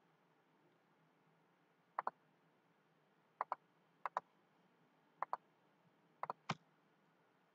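Computer mouse button clicking in quick double clicks, five times over about four and a half seconds, the last group the loudest, over faint background hiss.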